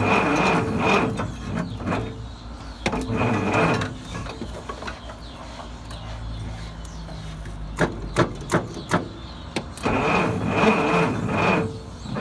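Dodge D300's slant-six engine turning over and firing in short bursts with a steady whine in each, on a battery running a bit flat. Between the bursts, a few sharp clicks about eight seconds in.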